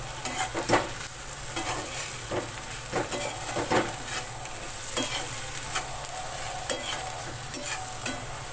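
Metal spatula stirring sliced bitter gourd and onions frying in oil in a metal kadhai: irregular scrapes and knocks against the pan over a steady sizzle, the strokes thinning out in the second half.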